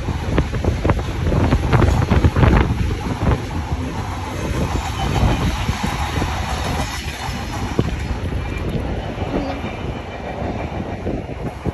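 Freight train of dark wagons rolling past at close range: a continuous rumble, with the wheels clattering over the rail joints, most busily in the first few seconds.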